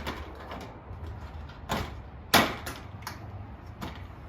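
Gazebo roof panel being forced into its metal frame channel: a series of sharp knocks and snaps, the loudest about two and a half seconds in.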